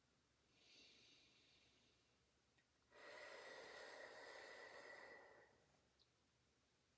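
Quiet paced breathing by one person: a short inhale through the nose just under a second in, then a longer exhale blown out through the mouth into a loosely curled fist, starting about three seconds in and lasting about two and a half seconds. It is a cough-relief breathing exercise that keeps the exhale longer than the inhale.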